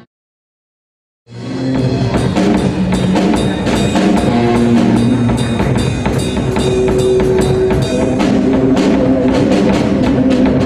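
Live rock band of electric guitars and drum kit playing, with a steady drum beat. The sound drops out to dead silence for about the first second, then the band comes back in.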